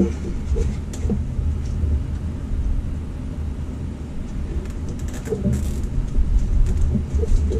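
A steady low rumble with a few short clicks and plastic ticks, a small cluster of them about five and a half seconds in, as a long zip tie is worked around loose engine wiring and pulled tight.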